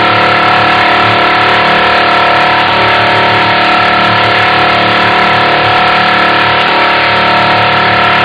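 Robot vocoder effect from the Voice Changer Plus app played at half speed: a loud, steady buzzing drone of many held tones, with no breaks.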